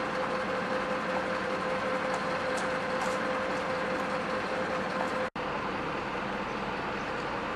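A vehicle engine running steadily, a constant droning hum with no changes in speed. The sound drops out for an instant about five seconds in, then the same hum carries on.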